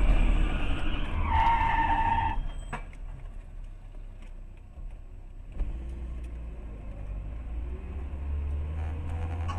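Car's road and engine rumble heard from inside the cabin, with a high tire squeal of hard braking lasting about a second, beginning about a second and a half in. The rumble then falls away and comes back abruptly a few seconds later.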